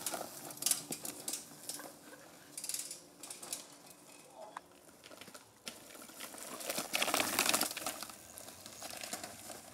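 Small bicycle tyres rolling and skidding over dry leaf litter and twigs on a dirt trail, with irregular crackling and a louder scrape about seven seconds in.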